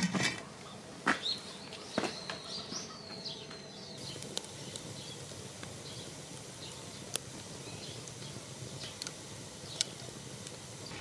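Heavy cast-iron gamasot lid settling on the cauldron with two knocks, and a bird chirping a few short calls. Then a wood fire burning in the firebox: a steady soft hiss with occasional sharp crackles.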